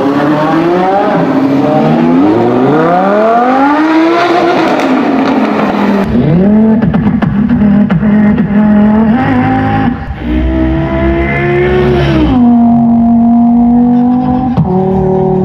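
Lamborghini Huracán V10 revving up through several upshifts, the pitch climbing again and again for about six seconds. Then a man imitates a revving supercar engine with his mouth through a microphone and PA speakers: held engine notes with short revving blips and pitch drops.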